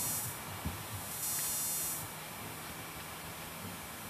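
Low steady hum and hiss of a camcorder's recording with a faint soft tap about two-thirds of a second in; no clubhead strike.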